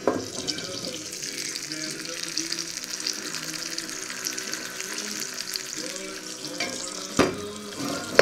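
Eggs and salami slices frying in a steel pan, a steady sizzle full of fine crackles, with music underneath. A sharp knock sounds about seven seconds in.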